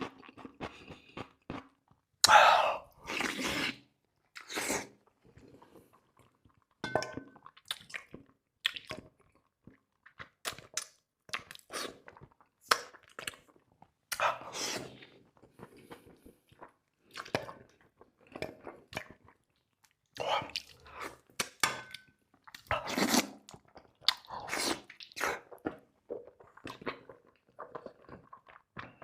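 A person chewing and biting food close to the microphone: irregular crunches, smacks and clicks, with the loudest bites about two seconds in.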